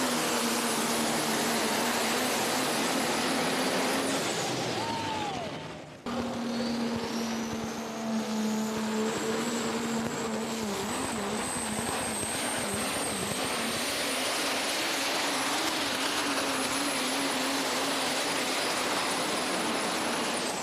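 Super stock diesel pulling tractor's turbocharged engine running flat out under load with a high turbo whistle. About four seconds in it winds down. After a cut, another run starts, its turbo whine climbing for several seconds and then holding high and steady.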